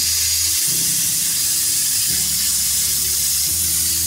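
Susemse 50 A pilot-arc plasma cutter with a P80 torch cutting sheet metal on a CNC table: the loud, steady hiss of the compressed-air plasma arc.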